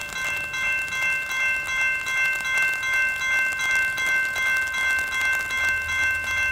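Railroad grade-crossing warning bell ringing steadily at about two strikes a second, signalling an approaching train. A low rumble from the oncoming train comes in near the end.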